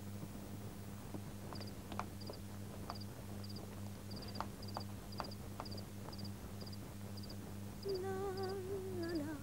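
Crickets chirping faintly in short triple pulses about twice a second, over a steady low mains hum, with a few scattered soft clicks. About eight seconds in, a woman starts humming a wavering tune.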